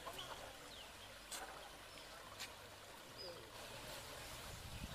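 Faint outdoor ambience at a rubble-strewn demolition site: a low background hum with a few scattered sharp knocks and brief faint chirps.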